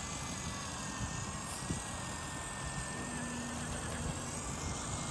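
Axial SCX24 1/24-scale RC crawler's small electric motor and gear drivetrain whining steadily as it climbs rock, with a few faint knocks.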